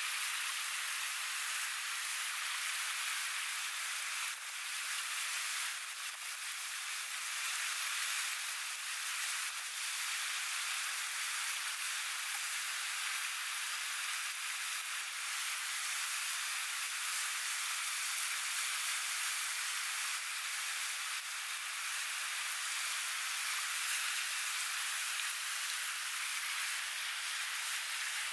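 Steady rushing hiss of a flowing river, even throughout, with a few faint light ticks now and then.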